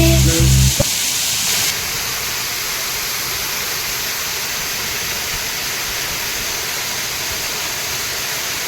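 Steady rushing of Kapildhara waterfall, an even noise without pitch or rhythm. Background music with a beat cuts off within the first second.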